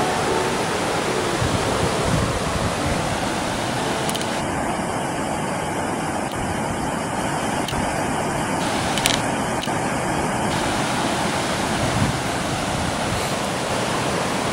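Steady rush of the swollen, flooded Fresno River flowing fast past the bank. Two brief clicks come through, about nine and twelve seconds in.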